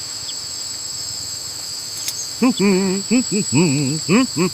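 Steady high cricket chirring throughout. From about halfway in, a voice makes a quick run of short, warbling, wordless calls.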